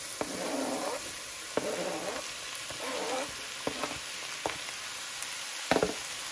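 Diced red bell pepper scraped off a cutting board with a knife into a hot pan of onions frying in oil: a steady sizzle under rough scraping, with several sharp knocks of knife or board against the pan, the loudest near the end.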